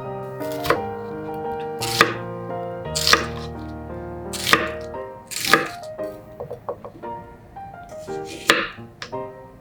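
A kitchen knife chopping food on a cutting board in slow, separate strokes, about one a second, with a longer pause before a last cut near the end. Background music plays throughout.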